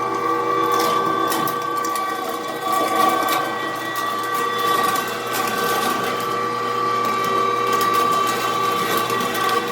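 LEM #32 Big Bite electric bone/meat grinder running loud and steady, a high whine over the motor's hum, as it grinds rabbit.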